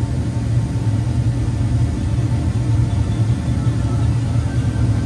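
2014 Dodge Durango engine idling steadily, a constant low hum, running up to temperature after a thermostat replacement and coolant refill.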